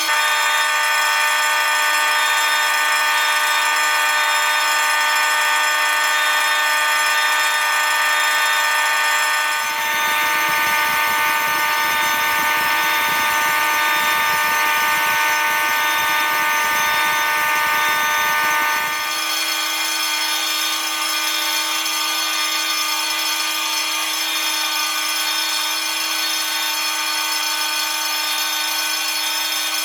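Thirteen fire alarm notification appliances, among them horns and a Notifier bell on an AMSCO motor, sounding all at once in a loud, steady blend of many held tones. From about ten seconds in to about nineteen seconds in, a low rough rattle joins the blend, then drops out.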